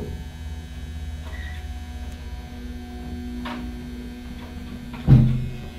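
Original Chiselbrook elevator setting off with a thump, then its motor running with a steady hum as the car travels. A loud, low thump comes about five seconds in.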